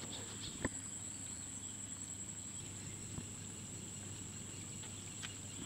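Quiet outdoor background: a steady high-pitched whine with a low hum beneath it, and a few light clicks, one just under a second in and another near the end.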